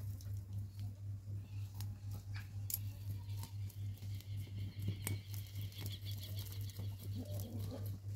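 Soil and fine roots crackling and scratching as they are picked out of a golden dewdrop's root ball, in many small irregular clicks. A steady low hum runs underneath, pulsing about three times a second.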